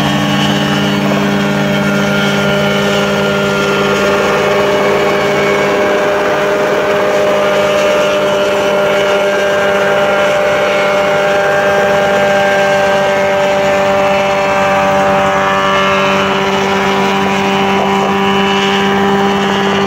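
Open-frame single-seat ultralight helicopter hovering low: its small engine and rotor run at a steady, even pitch. One low tone in the sound drops out about six seconds in.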